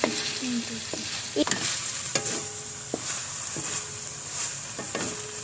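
Chicken sizzling as it sautés in a frying pan, stirred with a utensil that clicks and scrapes against the pan a few times.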